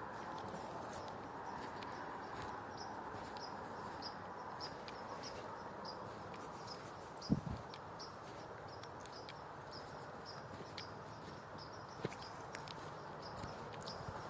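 Outdoor ambience: a steady low rush overlaid by a regular series of short, high chirps several times a second, with scattered clicks and one louder thump about seven seconds in.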